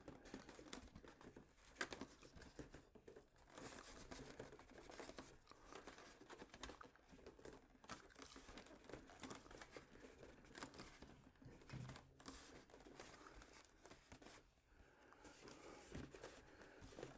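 Near silence, with faint scattered rustles, crinkles and small clicks of handling as hands hold a foam model's tailplane pressed into its fuselage slot.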